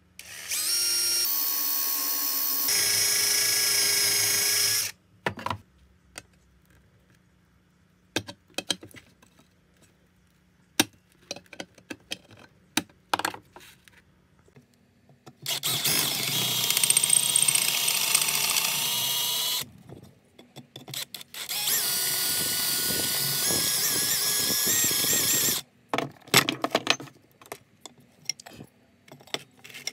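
Bench drill press drilling out the rivets on the flange of a steel car horn case, running in three spells of about four to five seconds each as the bit cuts through the metal. Between the spells, scattered light clicks and taps.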